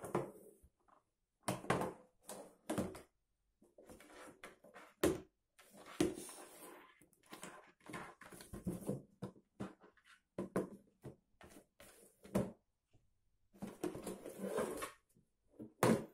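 Small cardboard box pushed about on a laminate floor by a cat: irregular scraping slides and light knocks in short bursts, with brief pauses between.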